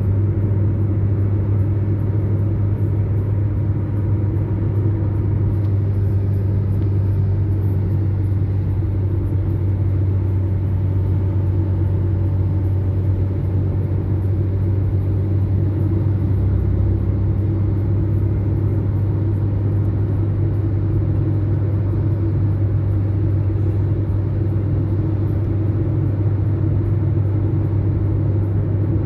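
Steady low drone of a car driving, engine and road noise heard from inside the cabin.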